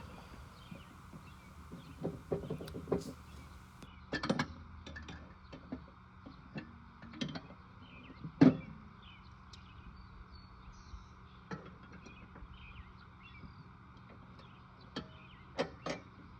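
Scattered clicks and knocks of hands and tools on the steel belt retainers of a riding mower's deck as they are bent closer to the pulleys, with one louder knock about eight and a half seconds in, over a faint steady hum.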